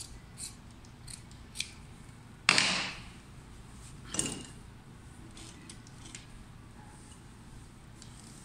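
Dressmaking scissors snipping a few times as a seam allowance is trimmed to an even half centimetre, with two louder rustles of the satin fabric as the garment is handled, about two and a half and four seconds in.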